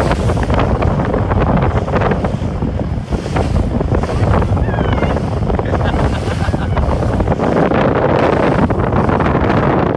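Loud, steady wind buffeting the microphone on a moving boat, over the rush of water in the boat's wake.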